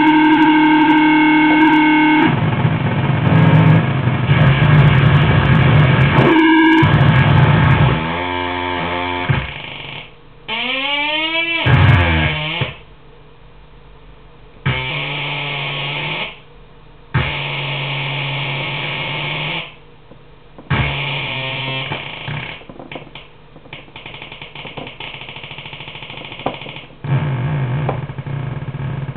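Homemade piggy-bank noise synth built on a 4093 quad NAND oscillator chip and a 4046 PLL tracker, played by hand. Harsh buzzing electronic tones shift and glide in pitch, with a rising sweep about ten seconds in. They then cut in and out as separate blasts, stutter for a few seconds, and settle back into a gritty drone near the end.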